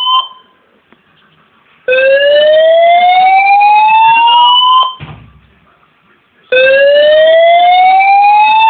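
Fire alarm sounding a slow rising whoop: a loud tone sweeps upward over about three seconds, breaks off, and starts again after a pause of a second and a half or so. It is a false alarm from a new fire alarm system that is set off too easily.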